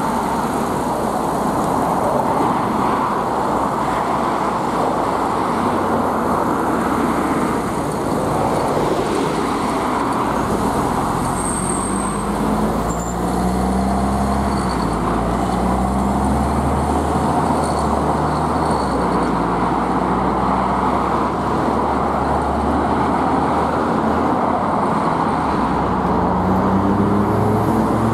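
LiAZ-6213.20 articulated diesel city bus idling amid passing traffic, then pulling away about a third of the way in. Its engine note rises several times in a row as it accelerates through the gears.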